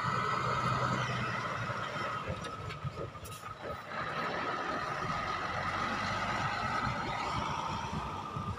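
Heavy diesel dump truck engine running as the loaded truck drives slowly over dirt, with a steady high-pitched whine over the engine noise.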